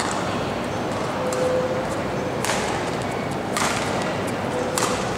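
Badminton rally: racket strings striking the shuttlecock, three sharp hits about a second apart in the second half, over the steady background noise of a large sports hall.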